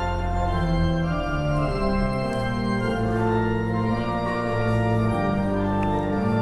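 Organ music playing slow, held chords that change about once a second.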